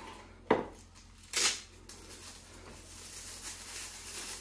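Objects being handled: a sharp knock about half a second in, a louder short scrape about a second later, then soft steady rustling.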